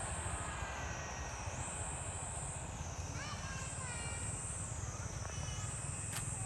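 Outdoor ambience: a high-pitched drone that swells and dips about every two seconds over a low rumble, with a short chirping call around the middle.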